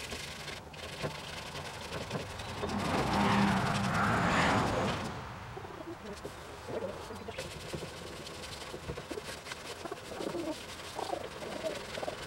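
1000-grit sandpaper rubbed by hand over feather-fill primer on a truck cab's sheet-metal dash, faint scratchy strokes. A rushing noise swells and fades about three to five seconds in and is the loudest part.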